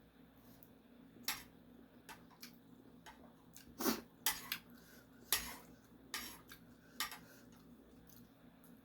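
Eating utensils clinking against a bowl during a meal of instant noodles: a series of separate sharp clinks at irregular intervals, roughly a second apart, the loudest about four and five seconds in.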